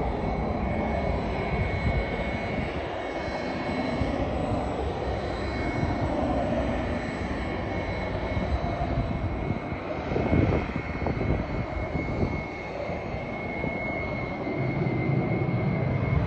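Draken jet aircraft flying by, its engines a steady noise with a thin high whine running through it. The noise swells briefly about two-thirds of the way through.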